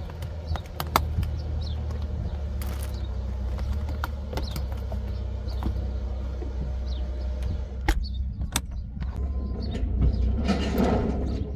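Clicks, knocks and rustling of a coiled rubber garden hose and plastic gear being handled in a caravan's exterior storage hatch, over a steady low rumble. About ten seconds in, a short rush of scraping noise as a plastic inline water filter is fitted onto the caravan's water inlet.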